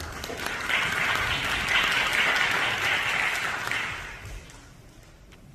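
Audience applauding. The clapping swells, then dies away after about four seconds.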